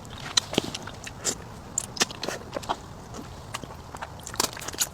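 Close-miked biting and chewing: a string of irregular sharp clicks and smacks from a mouth eating.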